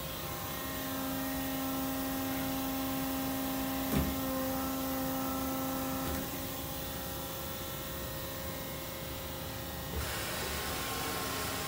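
SMW-Autoblok programmable steady rest on a Doosan Puma MX3000 CNC turning center moving along the bed under its drive. A steady motor whine sits over the machine's hum from about a second in and stops about six seconds in, with a click near four seconds. A hiss rises from about ten seconds.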